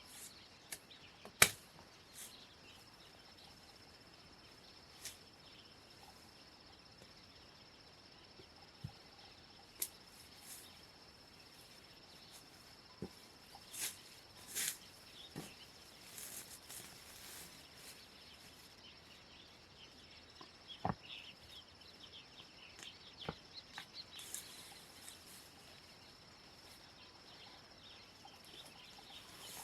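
Quiet outdoor ambience: a faint, steady, high-pitched insect drone, with scattered sharp clicks and knocks, the loudest about a second and a half in. Short high chirps come and go in the second half.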